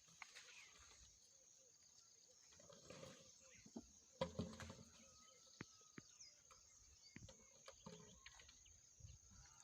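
Quiet outdoor farm ambience: a faint steady high-pitched hum with scattered small clicks and soft rustles, the loudest rustle and knock about four seconds in.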